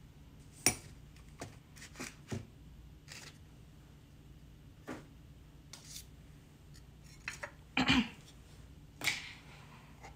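Light clicks and knocks of small containers and tools being handled on a worktable, about a dozen scattered through, with a slightly heavier knock about eight seconds in and a short rustle about nine seconds in. Faint steady room hum underneath.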